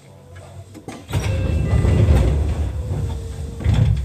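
Seibu 101-series train: a sudden loud, deep noise with hiss over it starts about a second in, swells again near the end and cuts off abruptly.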